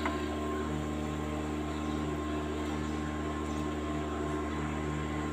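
Steady machine hum with several held tones under a faint hiss, and one brief light knock at the very start.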